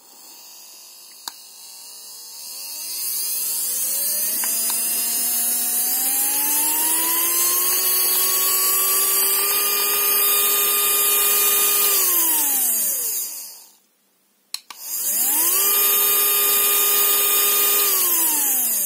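12 V brushed DC motor run by a PWM speed controller, whining as it spins up slowly to full speed, holding there, then winding down to a stop. After a short pause it starts again, spins up quickly to full speed and winds down near the end: the controller's soft start and soft stop.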